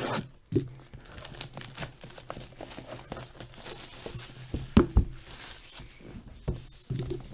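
Plastic shrink-wrap being torn and crinkled off a cardboard trading-card box, an irregular crackling, with a few knocks as the box is handled; the loudest is a sharp thump about five seconds in.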